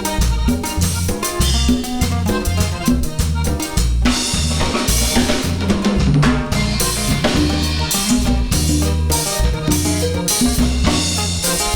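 Instrumental break of a cumbia tejana song played by a band: drum kit keeping a steady beat with bass notes under a melodic line, between sung verses.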